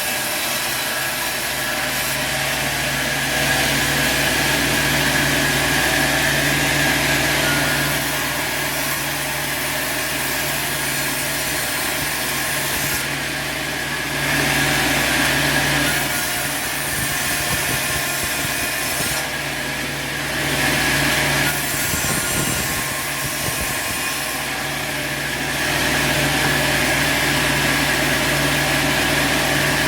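Sawmill running steadily, with several louder stretches of a few seconds each as the saw blade cuts through crooked wood.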